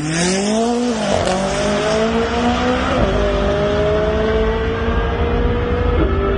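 McLaren sports car's twin-turbo V8 accelerating hard on a drag-strip run. The pitch climbs through each gear and drops at the upshifts, about a second in, about three seconds in and about six seconds in.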